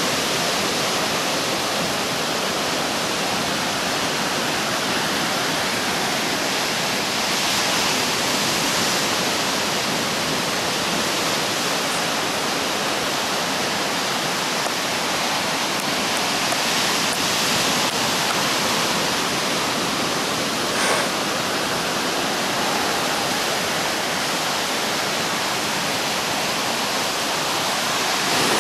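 Ocean surf breaking and washing up a sandy beach: a steady rushing that swells a little as each wave comes in.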